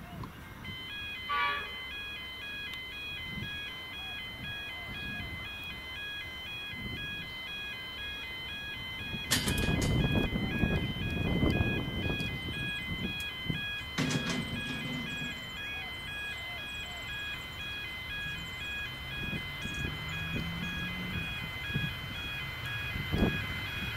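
Railway level crossing bells ringing in a steady, repeating chime pattern while a freight train approaches. Louder low rumbling noise comes in about nine seconds in and again about fourteen seconds in.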